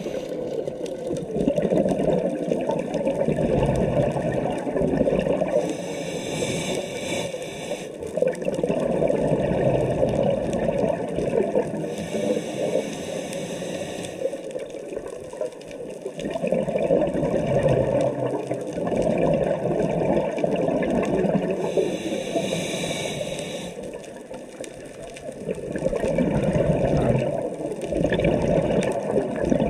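Scuba diver breathing through a regulator underwater: bubbling, gurgling exhalations, broken four times by the high hiss of an inhale.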